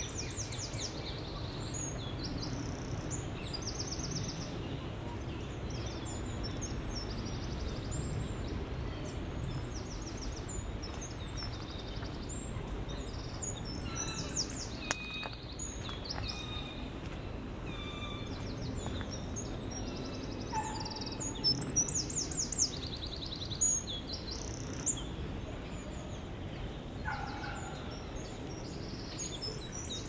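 Several small songbirds singing, with quick high trills and chirps throughout and a few louder notes a little past the middle, over a low steady background rumble.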